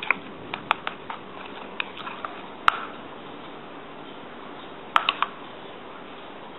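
Sharp clinks of a metal utensil or cup rim against a stainless steel mixing bowl of batter: scattered clicks in the first three seconds and a quick cluster of three about five seconds in, over a steady low hiss.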